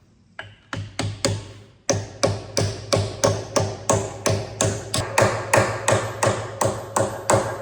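Hammer striking a new steel bush to start it squarely into the JCB Robot's boom pin bore. Steady, even blows about three a second, each with a short metallic ring.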